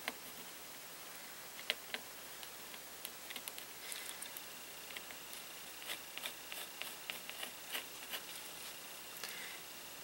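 Faint scratching and light ticking of a mechanical pencil stroking across painted paper, in short irregular strokes that come more often after the first few seconds.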